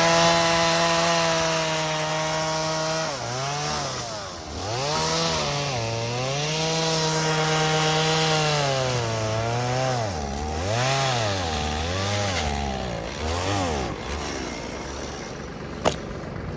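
Chainsaw engine running at full throttle while cutting logs, its pitch dropping and climbing again several times as the throttle is eased and opened. It settles to a lower, steadier pitch near the end, and a single sharp click comes just before the end.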